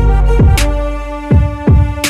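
Background music with an electronic beat: deep kick drums that drop in pitch, several times, and a sharp snare-like hit, over held chords.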